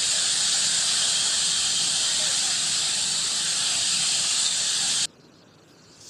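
Floodwater torrent rushing in a loud, steady hiss of water that cuts off abruptly about five seconds in.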